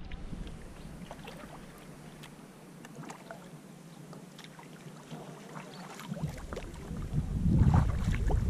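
Kayak paddle blades dipping and dripping, with small splashes and water trickling. From about seven seconds in, wind buffeting the microphone builds to a loud low rumble.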